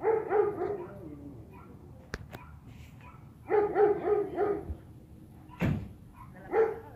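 An animal calling in three bursts of quick, pitched calls, near the start, in the middle and near the end, with a few sharp clicks between them.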